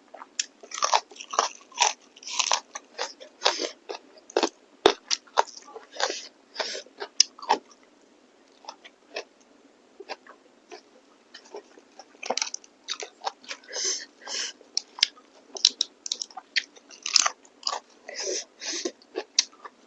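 Close-miked chewing and wet mouth sounds of someone eating beef innards and meat curry: irregular chews, smacks and crunches in quick succession, sparser for a few seconds in the middle.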